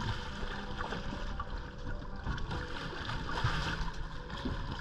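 Water splashing and sloshing against a small boat's hull as a hooked sailfish, held by the bill, thrashes at the boat's side.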